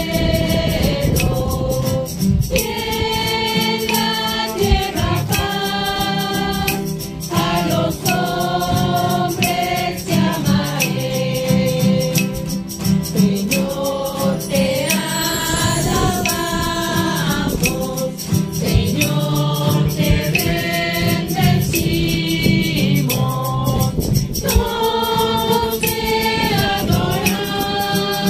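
Religious song sung by a group of voices, with shaken rattles and drumming throughout.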